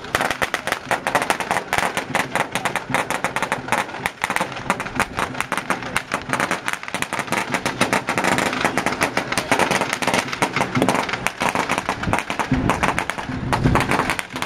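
A long string of firecrackers going off, a rapid, irregular crackle of many sharp bangs a second that keeps on without a break.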